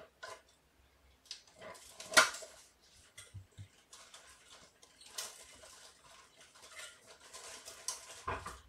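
Kittens playing on a floor: scattered rustling of brown paper and clattering of small toys, with one sharp knock about two seconds in and denser rustling in the second half.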